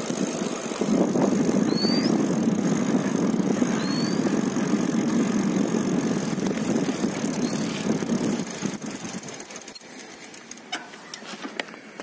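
Wind rushing over a phone microphone while riding a bicycle, a steady low noise that drops away about nine seconds in as the bike slows. Two short rising chirps come about two and four seconds in, and a few sharp clicks and knocks near the end.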